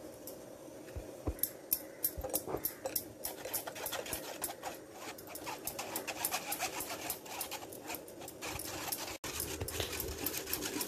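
A spoon scraping and pressing cocoa powder mixture through a metal mesh sieve: a fast run of scratchy clicks, sparse at first and busier from about four seconds in.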